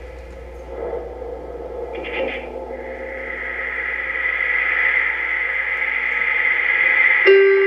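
Ambient electronic drone soundtrack: a steady low hum under a hissing, static-like wash of sound that swells gradually louder, with a new held tone coming in near the end.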